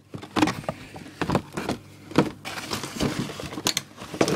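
Fireworks and their packaging being handled and set down: a string of irregular knocks and clatters with light rustling, the sharpest knock about two seconds in.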